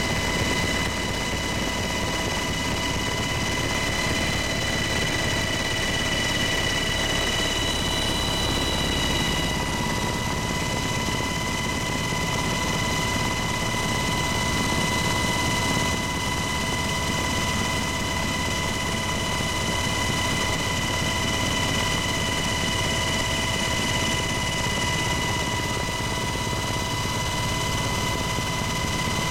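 Helicopter cabin noise in steady flight: a constant rush of rotor and engine with a steady high whine over it, unchanging throughout.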